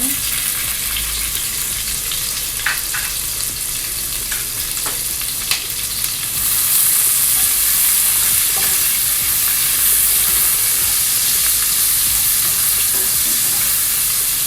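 Onion frying in hot olive oil in a pan, sizzling steadily, with a few light knocks of a utensil as it is stirred. The sizzle starts suddenly and grows louder about six seconds in.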